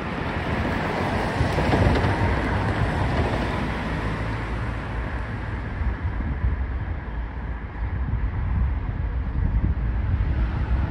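Wind buffeting the microphone over a low traffic rumble, with a road vehicle passing about two seconds in.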